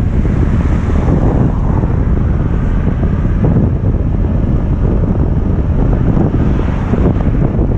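Heavy wind buffeting on the microphone of a bike-mounted camera while riding a bicycle downhill, a steady low rumbling rush.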